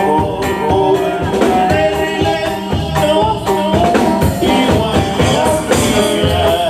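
Live band music from a regional Mexican conjunto playing on stage, with melodic instruments over a drum kit keeping a steady beat.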